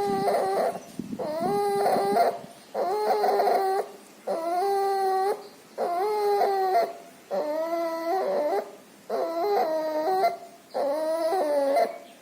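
A puppy sick with pneumonia and distemper whimpering in a steady rhythm, a pitched whine with each noisy breath. There are about eight whines, each about a second long, repeating about every second and a half.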